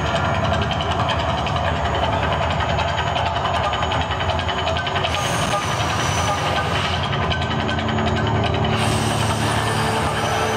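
Mirage volcano show erupting: a loud, steady, deep rumbling roar as gas fireballs and water jets shoot up from the artificial volcano.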